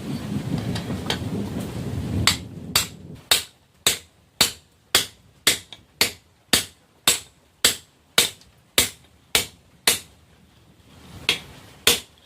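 A hand hammer strikes hot railroad-rail steel on an anvil in an even rhythm of about two blows a second, each blow ringing briefly. After about fifteen blows there is a pause, then two more blows near the end. A low rumbling noise comes before the hammering starts.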